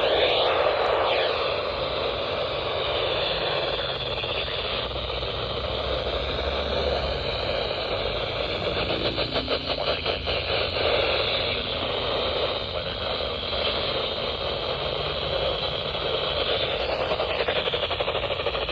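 Steady radio static and hiss, with a stretch of fast fluttering about nine to eleven seconds in.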